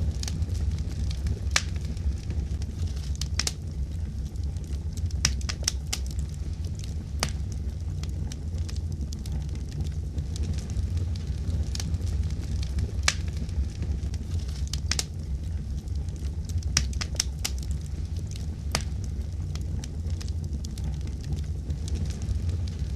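A fire crackling: a steady low rumble under sharp pops that come at irregular intervals, bunched closer together around five to six seconds in and again around seventeen seconds in.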